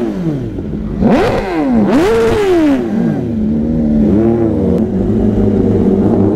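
Inline-four superbike engine being revved in the stand: the tail of one rev dropping away, two quick revs about a second apart, a smaller blip, then a steady idle.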